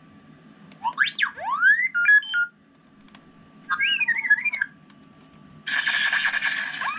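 R2-D2 droid beeps and whistles from the Light My Bricks sound kit's small speaker inside a Lego R2-D2: sweeping rising and falling whistles about a second in, a warbling run of beeps near four seconds, then a harsh buzzing squeal near the end. A faint steady high tone sits underneath.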